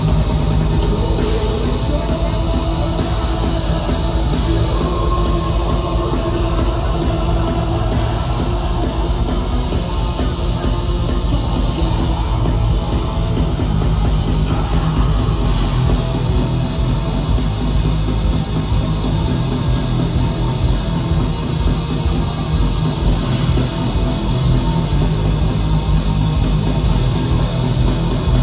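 Black metal band playing live at full volume: distorted electric guitars and drums in a dense, unbroken wall of sound that never lets up.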